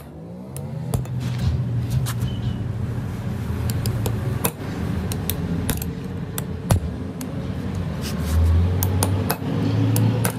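Hammer blows on steel pliers wedged behind a ball bearing on a small engine crankshaft, driving the bearing off: sharp metallic knocks at irregular intervals, over a steady low hum.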